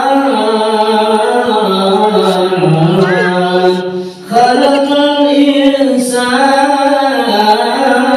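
A man's voice chanting an Arabic religious passage in long, drawn-out melodic notes into a microphone, with a short breath about four seconds in.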